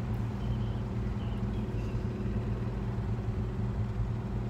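Steady low drone of a 1966 Plymouth Valiant running, heard from inside the car's cabin.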